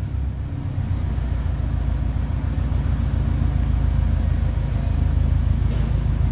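Subaru Impreza's flat-four boxer engine idling steadily at the exhaust, in an underground car park.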